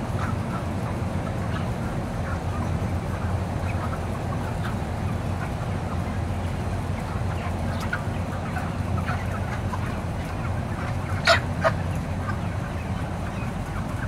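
A large flock of market-age broiler chickens making scattered short calls over a steady low hum. About eleven seconds in come two sharp, louder squawks, a fraction of a second apart.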